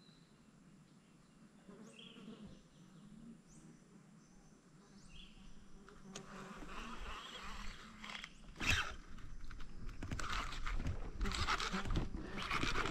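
A few faint, short, high chirps from the riverbank wildlife. Then, from about six seconds in, rustling and clattering handling noise from the fishing rod and kayak grows louder, with one sharp knock near nine seconds, as a fish takes the bait.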